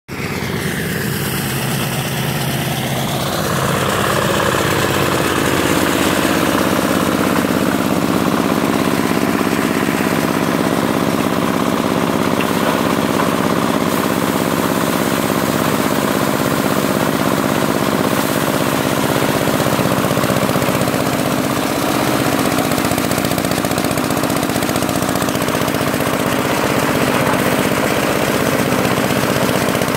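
Engine-driven rice thresher running, threshing rice stalks as they are fed in: a loud, steady mechanical din that builds over the first few seconds and then holds.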